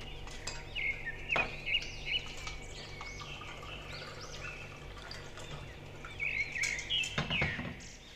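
Birds chirping steadily in the background while sattu sharbat is poured from a jug into glasses. There is a sharp knock about a second and a half in and a louder clatter near the end, as the jug is set down.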